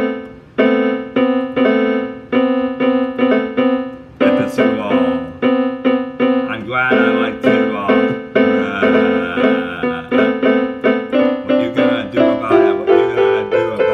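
Piano-like keyboard backing music, with chords struck in a steady rhythm a few times a second, each ringing and fading before the next.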